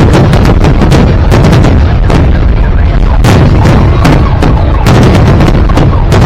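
Fireworks display going off in a dense barrage: shells bursting many times a second over a constant deep rumble, very loud.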